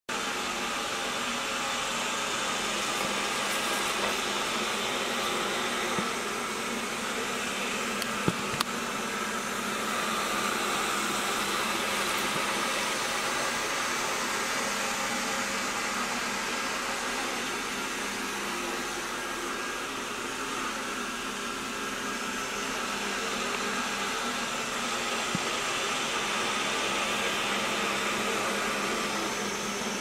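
Xiaomi Roborock S5 robot vacuum running steadily, a constant whir of its suction fan while it cleans in mopping mode, with a couple of small clicks about eight seconds in.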